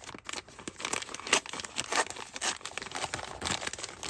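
Packaging crinkling and rustling in a series of irregular crackles as a drone is unwrapped and lifted out of its box.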